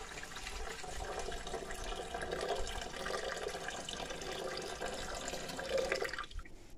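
A thin stream of water is poured from an enamel mug into an aluminium pot that already holds water, splashing steadily. It stops a little before the end.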